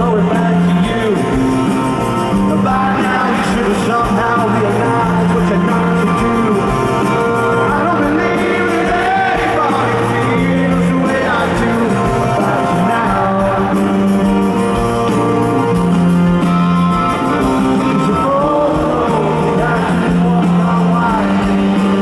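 Live rock band playing, with a man singing the lead vocal over held chords and bass.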